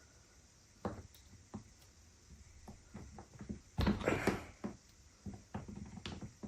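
Scattered clicks and knocks from handling a suitcase wheel and its hub, with a louder cluster of knocks about four seconds in.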